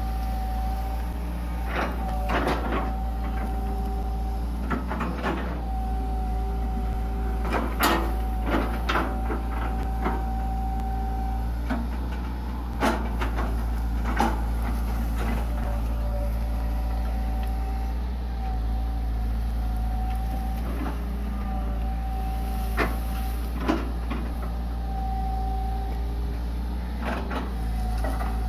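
Hitachi EX120 long-arm excavator's diesel engine running steadily under load, with a whine that comes and goes as the arm moves. Sharp knocks and clanks sound now and then, about ten in all, as the bucket works through banana trunks and brush.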